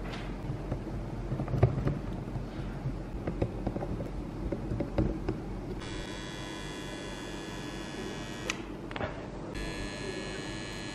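Scattered clicks and knocks of hands working a fan's push-button switch unit, then a transformer soldering gun buzzing with its trigger held while soldering wires to the switch terminals: it buzzes from about six seconds in, stops for about a second, and buzzes again near the end.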